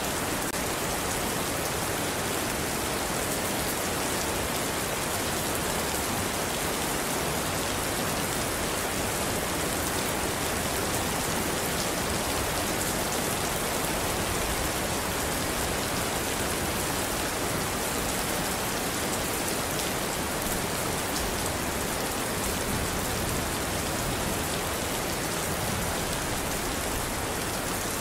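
Steady rain falling: an even hiss of water, with now and then a single drop ticking out.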